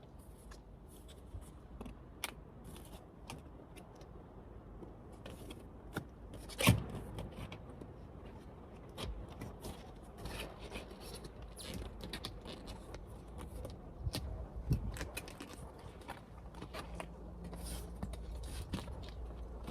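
Hard plastic in-channel rain guard being worked into a car door's window channel: scattered light scrapes and clicks of plastic against the track and rubber seal, with a sharper knock about a third of the way in and another a little past two-thirds.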